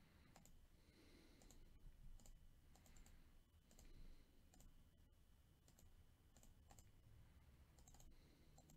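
Faint, scattered computer mouse clicks and key presses against near silence.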